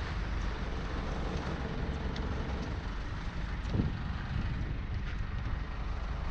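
Small powerboat's engine running steadily, under an even hiss of wind and water.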